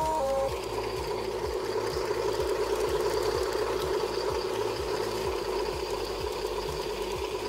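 G-scale model Santa Fe F-unit diesel locomotive running along garden track: a steady motor-and-gear hum with a regular light clicking, two or three ticks a second. A two-note horn blast from the locomotive ends about half a second in.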